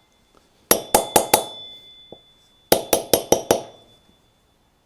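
Hammer tapping on metal in two quick runs, about four taps then about five, each run leaving a high metallic ring. This fits tapping a wheel bearing or seal into a quad bike's front hub.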